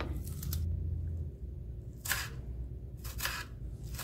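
Kitchen knife cutting through a red onion on a wooden chopping board: a few separate cuts, near the start, about two seconds in and again a second later, over a low steady hum.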